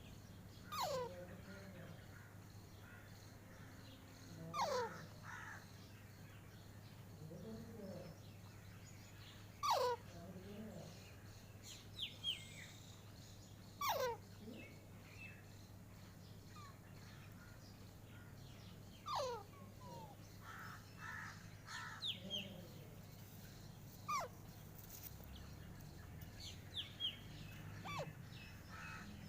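Pet parrot giving short calls that fall in pitch, about eight of them a few seconds apart, over a steady low hum.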